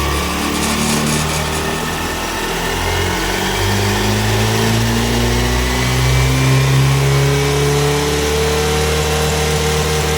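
Honda Dio 125 BS6 scooter running under gentle throttle, with a thin whine that rises slowly in pitch over the engine's steady running. The whine comes from the gearbox pinion, which is faulty.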